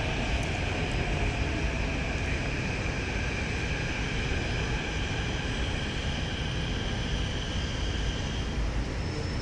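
Kawasaki–CSR Sifang CT251 metro train pulling into the platform, heard through the platform screen doors: a steady rumble with a high whine that fades out as the train slows nearly to a stop, about eight seconds in.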